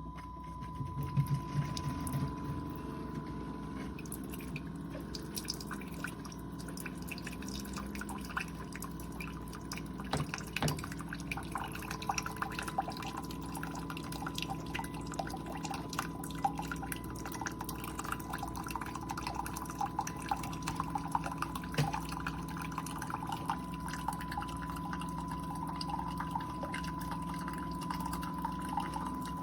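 Keurig K-Supreme Plus pod coffee maker brewing: a steady machine hum with a thin steady tone over it, and coffee dripping and trickling into the cup. It starts about a second in and goes on unbroken.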